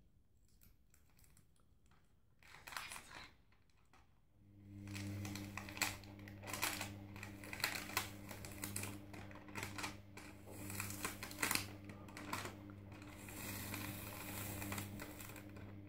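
Fingertips picking and peeling the plastic adhesive film off an iron-on transfer on a cotton T-shirt: irregular small clicks, scratches and crinkles. About four and a half seconds in, a steady low hum starts underneath.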